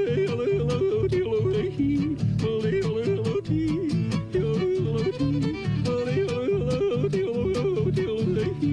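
Western cowboy song between verses: yodeling that jumps up and down in pitch, over strummed acoustic guitar and fiddle.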